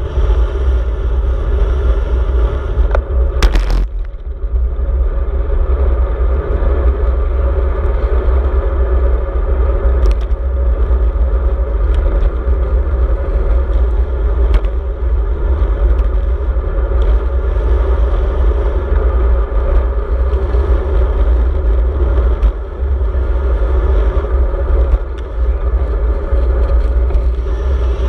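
Strong wind buffeting the microphone of a handlebar-mounted action camera while cycling: a loud, continuous low rumble. A sharp knock comes about three and a half seconds in, with a few fainter ticks later.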